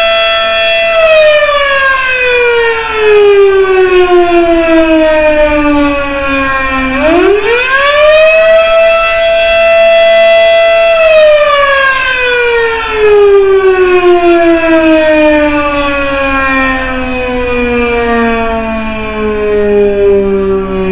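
Federal Sign & Signal Model 7 electromechanical warning siren sounding a wail: a loud steady tone that slowly winds down in pitch, climbs quickly back to full pitch about seven seconds in, holds for a few seconds, then winds down again.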